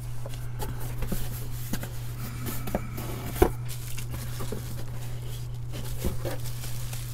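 Hands handling a cardboard box and the bubble wrap inside it: scattered rustling, crinkling and light knocks, with one sharp knock about three and a half seconds in.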